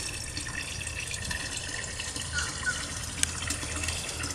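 A steady wash of noise like running water, with a few faint short high chirps about two and a half seconds in.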